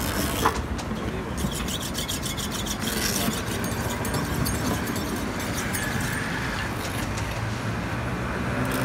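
Knife cutting and scraping through car-tyre rubber, with some fine rapid clicking high up early on, over a steady background noise.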